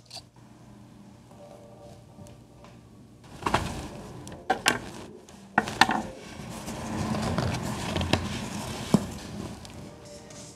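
Handling noise from a neoprene wetsuit being shifted and pressed flat on a wooden table, a rustling that swells for a few seconds past the middle. Several sharp clicks and knocks fall between about a third of the way in and near the end.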